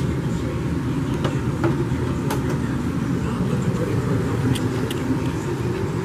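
A steady low hum, with a few light clicks scattered through it.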